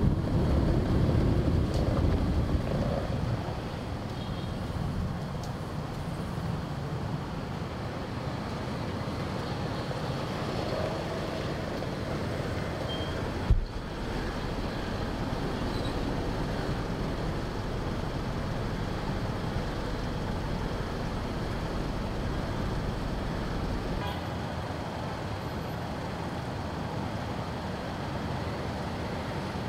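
City road traffic heard from a motorbike waiting in a queue of cars and motorbikes: steady engine and road noise, louder for the first few seconds while the bike is still rolling, then even. A single sharp click about halfway through.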